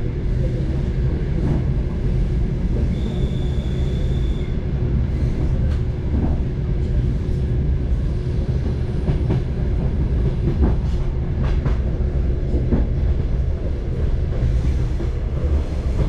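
Train wheels clattering over rail joints, heard from inside the passenger car: a steady low rumble with irregular sharp knocks. A brief high whine comes in about three seconds in.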